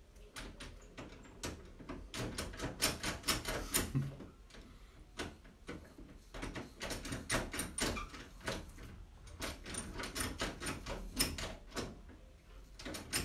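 A door handle being turned and rattled again and again from the other side by someone trying to get in, with irregular clusters of sharp clicks and latch rattles.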